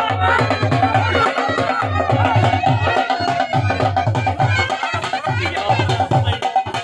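Dhol drum beating a steady rhythm under a wavering wind-instrument melody from the baja: traditional Punjabi folk music.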